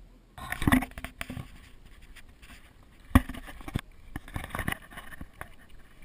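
Irregular scraping and rustling broken by scattered knocks, the sharpest about three seconds in.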